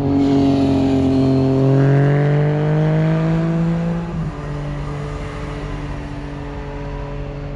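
A motor vehicle's engine accelerating, its pitch rising steadily for about four seconds, then dropping suddenly at a gear change and running on at a steady pitch.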